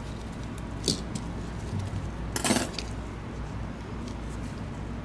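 Small clicks and clinks of a precision screwdriver against the plastic chassis and parts of a computer mouse being reassembled: one sharp click about a second in, and a louder short rattle of clicks about halfway through.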